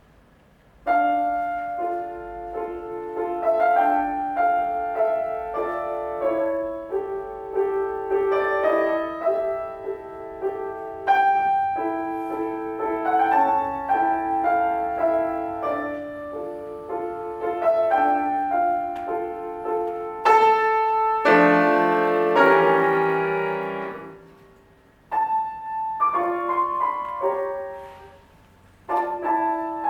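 Solo piano playing classical music: a flowing passage of notes begins about a second in, a loud full chord rings out about two-thirds of the way through and dies away, and the playing stops briefly twice near the end before resuming.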